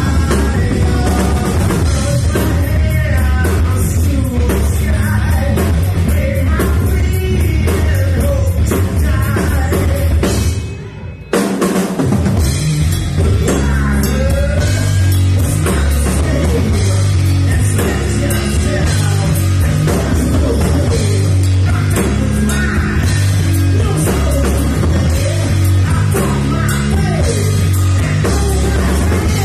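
Rock band playing live: electric guitar, bass guitar and drum kit with a singer. About ten seconds in, the band stops for under a second, then comes back in at full volume.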